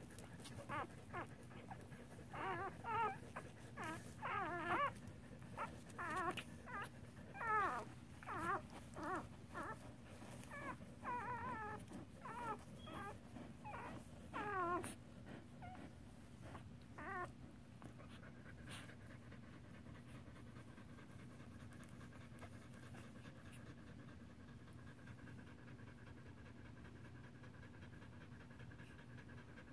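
Dog whimpering: a long run of short, high, wavering whines in quick clusters that stops about 17 seconds in, followed by a faint steady hum and soft panting.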